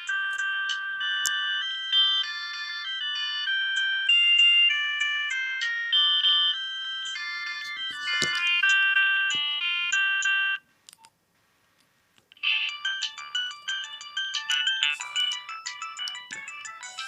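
Nokia 3510 mobile phone ringtones playing through the phone's small speaker: a tinny synthesized melody of several notes at once. It cuts off about two-thirds of the way through, and after about a second and a half of silence a different ringtone starts.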